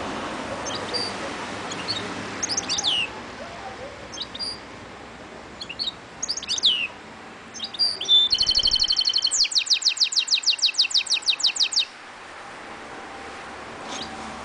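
Caged mule finch (goldfinch–canary hybrid) singing: scattered short chirps and quick downward-sweeping notes, then past midway a fast trill of repeated notes that runs into a rapid string of about ten sweeping notes a second, stopping suddenly a couple of seconds before the end.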